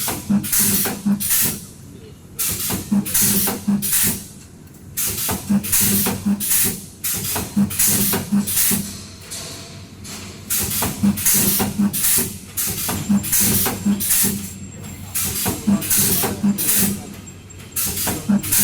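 Automatic spot welding machine cycling: short hisses of air from the pneumatic electrode cylinders, each with a brief electrical buzz, repeating about once a second in runs separated by short pauses.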